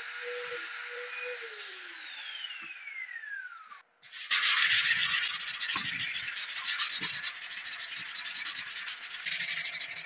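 Electric orbital sander's motor whining steadily on finger-jointed laminated wood, then spinning down with a falling whine. After a brief gap, a sanding pad is rubbed by hand over the wood in quick, scratchy strokes, louder than the machine.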